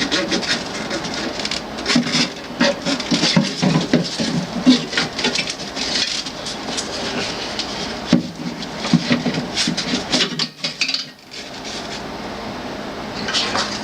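Metal parts of a water cooler clattering and clinking as it is taken apart by hand: irregular knocks and rattles, with a short lull about ten seconds in.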